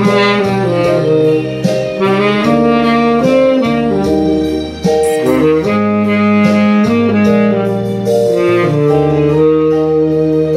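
Tenor saxophone playing a slow ballad melody, one sustained note gliding into the next, over a backing track with steady bass notes underneath.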